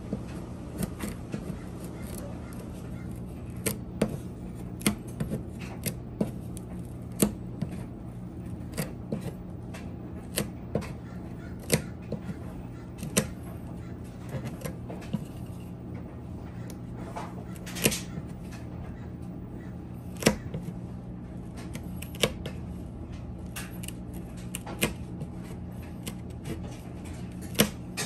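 Blue plastic trim tool scraping and prying old emblem adhesive off a painted vehicle panel: irregular sharp clicks and scrapes, about one a second, over a steady low hum.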